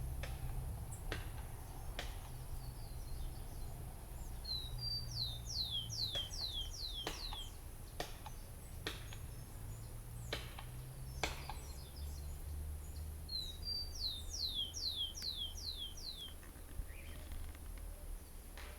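A small songbird sings two phrases several seconds apart, each a quick run of about seven descending whistled notes. Under the song there is a low steady rumble, and a few sharp clicks come through, the loudest about eleven seconds in.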